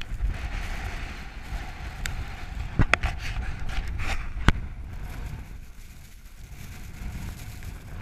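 Strong gusting wind (about 31 mph, gusting to 41) buffeting the microphone, with the hiss of blowing snow that eases after about five seconds. A few sharp clicks come around three seconds in and again about a second and a half later.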